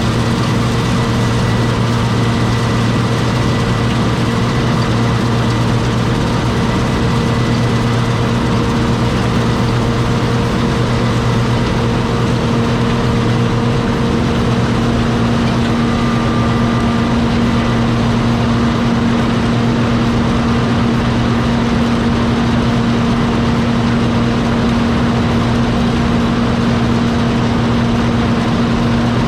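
John Deere 6620 combine's diesel engine running at a steady speed, its pitch unchanging throughout.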